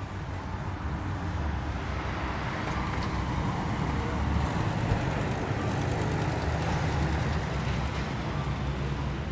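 A motor vehicle passing by: a low engine hum with road noise that builds through the middle and eases slightly toward the end.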